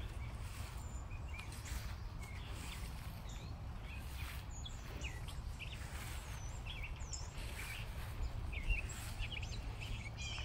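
Songbirds chirping with many short calls, more often in the second half, over a steady low rumble and faint regular swishes of footsteps through grass.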